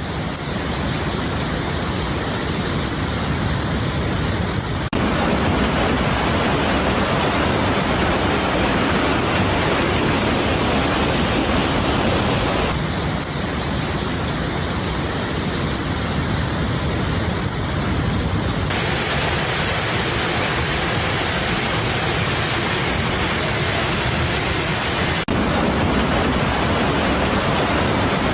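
Rushing floodwater of an overflowing mountain torrent: a loud, steady rush of water. Its character changes abruptly several times, every five to eight seconds.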